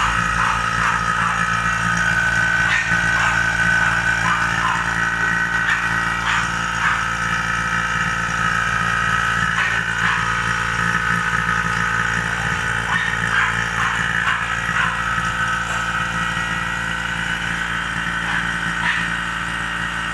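Refrigeration vacuum pump running steadily with a constant motor hum, evacuating the refrigerator's sealed system after a compressor replacement, with occasional light clicks.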